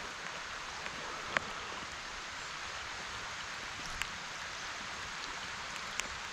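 Rain falling on a shallow creek's surface, a steady hiss of drops, with three short sharp ticks standing out, the first about a second and a half in the loudest.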